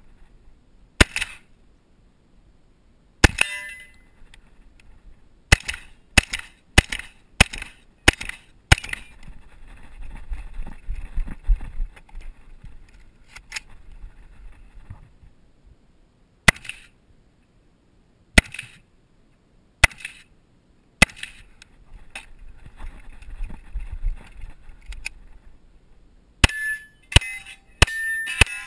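Gunfire: a shotgun's shots, then single shots spaced a second or more apart with rustling movement between, then a fast string of Glock pistol shots near the end.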